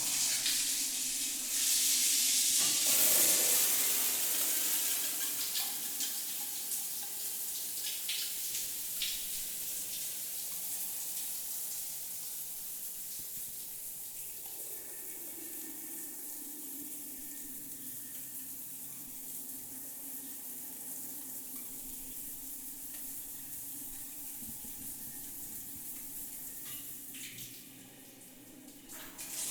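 Shower running, water spraying and splashing in a steady hiss. It is loudest in the first few seconds and dips briefly near the end. About halfway through, a low tone slides down in pitch.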